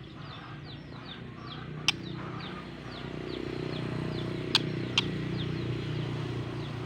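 A small bird repeating short, falling chirps a few times a second, over a low steady hum that grows louder about halfway through, with a few sharp clicks.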